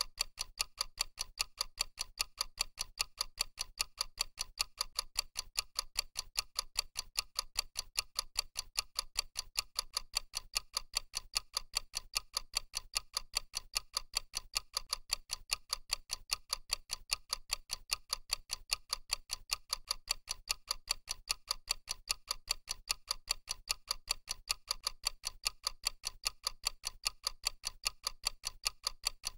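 Clock ticking sound effect for a countdown timer: a steady run of sharp, evenly spaced ticks, several a second.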